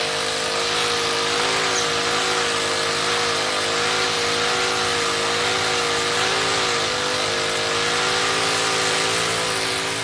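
Small motorcycle engine running steadily, its pitch wavering slightly up and down.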